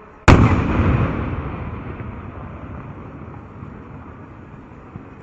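A single loud boom from a 4-inch aerial firework shell, its echoing rumble dying away over about three seconds.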